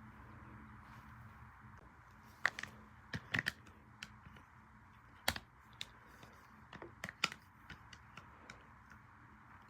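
A run of irregular sharp clicks and light taps, a few louder ones among them, over a steady faint hiss.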